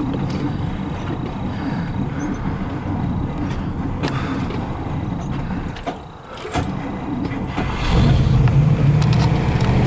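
The 1955 Oldsmobile 98's 324 cubic-inch Rocket V8 running, heard from inside the cabin. Its sound drops briefly about six seconds in, then it runs louder and steadier from about eight seconds.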